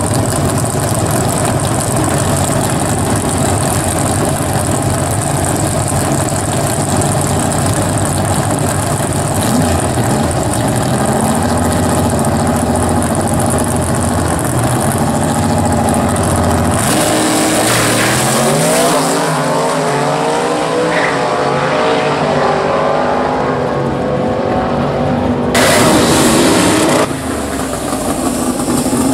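Two drag race cars, a Fox-body Mustang and its opponent, idle steadily at the starting line. A little over halfway they launch, and the engine pitch climbs repeatedly through the gears as they pull away down the track. Near the end comes a brief, very loud blast of engine and tyre noise as a Ford Pinto drag car does a burnout.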